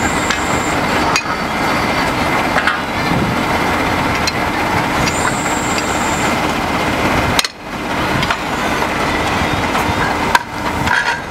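Truck-mounted core drilling rig running steadily and loudly, with a few sharp metallic clanks from the rig and drill rods.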